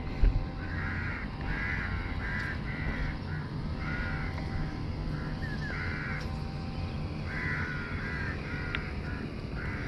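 A bird giving short repeated calls in several runs, over a steady low rumble, with one thump just after the start.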